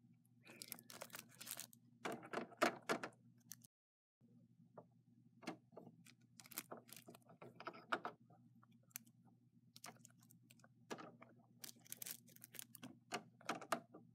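Irregular clicks and taps of small plastic Littlest Pet Shop figures being handled and moved by hand on a toy set, over a faint steady low hum.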